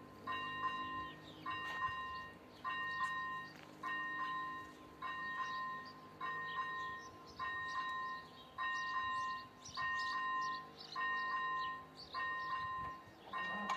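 Czech railway level-crossing warning bell, an electronic chime striking evenly about once a second: the crossing is warning of an approaching train.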